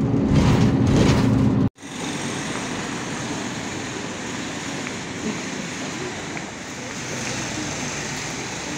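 Coach bus cabin noise: the engine running with a loud, steady low hum. After about two seconds it cuts off sharply to steady street traffic noise from passing cars.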